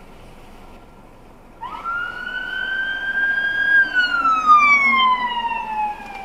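Siren of a Montreal fire department vehicle arriving on a call, over low road hum. About a second and a half in, it sweeps up quickly, climbs slowly to a high pitch, then falls away slowly in one long wail cycle.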